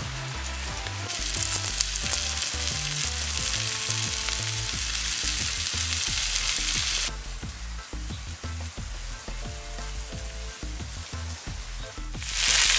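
Crickets frying in a metal wok, sizzling steadily, with a metal spatula stirring through them. The sizzle drops noticeably about seven seconds in and comes back loud near the end.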